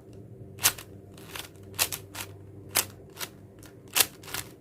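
4x4 Rubik's cube layers being turned through an algorithm: a run of about eight sharp plastic clicks, irregularly spaced roughly every half second.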